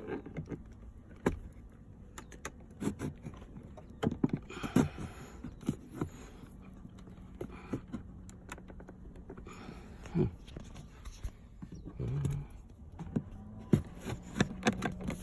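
Hands working at a plastic interior trim panel of a Mercedes W212 E-Class to open it: scattered clicks, taps and knocks with some rustling. A low steady hum runs for a few seconds in the middle.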